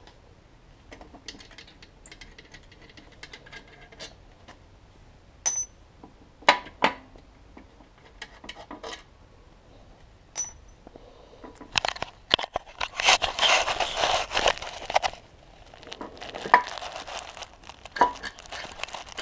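Hand tools and metal parts being handled: scattered clicks and clinks, a couple with a short metallic ring, then stretches of rustling and scraping from about twelve seconds in.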